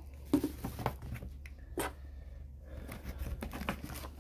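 Handling noise as a paper instruction manual is lifted out of foam packing: a few sharp rustles and taps, the loudest about half a second in, then a quicker run of rustling near the end.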